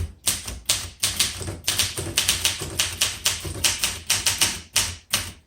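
1966 Olympia SM9 manual typewriter being typed on at a brisk pace, a quick run of sharp key strikes at about five a second, each with a low thud of the typebar hitting the platen.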